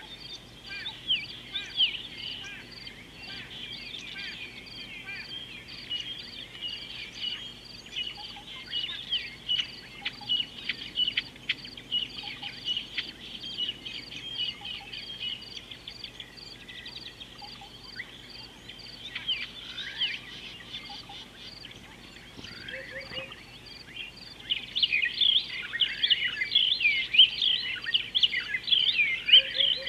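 A chorus of many wild birds chirping and whistling in quick short calls, growing busier and louder near the end, over a steady high note repeated about twice a second.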